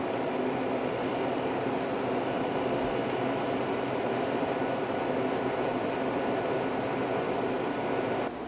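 Fedders 5000 BTU room air conditioner running with a steady blowing and hum; its level drops suddenly near the end.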